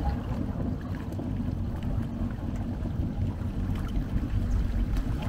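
A low, steady engine rumble with wind buffeting the microphone.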